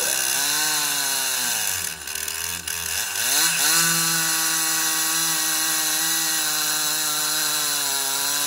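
Stihl MS 362 C two-stroke chainsaw running at high revs in a homemade chainsaw mill, ripping along a log. About two seconds in, its pitch and level sag for about a second, then it picks back up and runs steadily in the cut.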